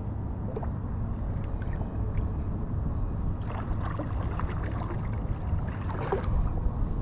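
Kayak paddle dipping and water trickling and splashing off the blade, over a steady low rumble. The splashing grows busier about halfway through.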